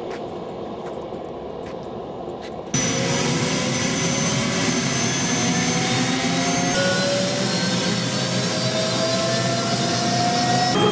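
Helicopter turbine engine spooling up, a steady whine rising slowly in pitch over a loud running hum. About a quarter of the way in the sound jumps suddenly louder and brighter, as the recording moves from outside the aircraft into the cockpit.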